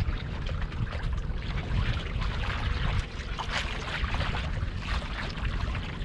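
Water splashing and trickling around a small fishing boat, over a low uneven rumble of wind on the microphone.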